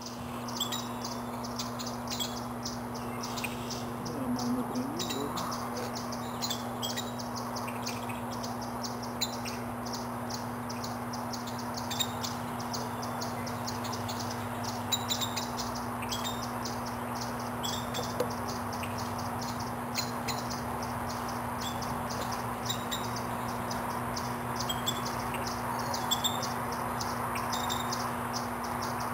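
Virginia rail family calling from cover: a steady run of short, high peeps and ticks, many in quick succession, over a steady low hum.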